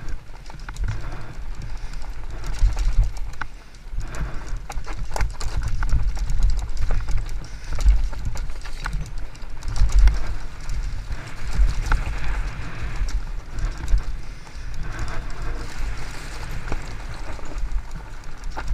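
Haibike Sduro FullFat Six fat-tyre electric mountain bike descending a rough dirt and rock trail, heard close from a camera on the rider: tyres rolling over the ground with constant irregular knocks and rattles from the bike, over heavy low thumping.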